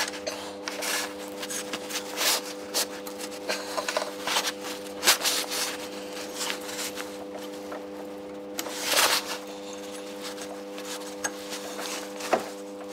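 Worn rubber V-belt being worked over engine pulleys by hand: irregular rubbing, scraping and small knocks of belt, hands and metal, the loudest about five and nine seconds in, over a steady low hum.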